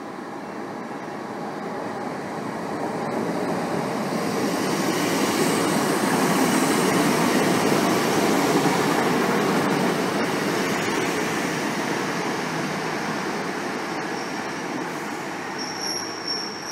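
Arriva Trains Wales diesel multiple unit running in along the platform, its engine and wheels growing louder as it draws alongside and then fading as it slows. A brief high-pitched squeal near the end.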